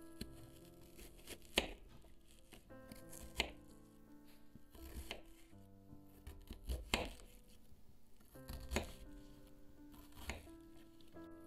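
Kitchen knife slicing through a red onion and knocking on a wooden cutting board, about six sharp knocks spaced a second and a half to two seconds apart, over soft background music.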